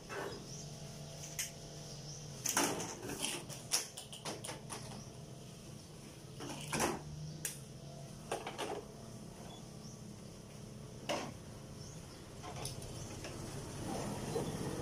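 Scattered clicks and knocks of objects being handled, moved and set down, over a steady low hum.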